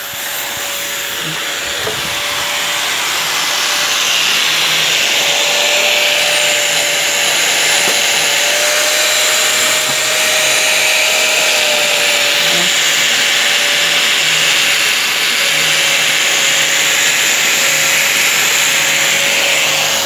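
Electric angle grinder running with a grinding disc against steel, a steady whine over a harsh hiss that grows louder over the first few seconds.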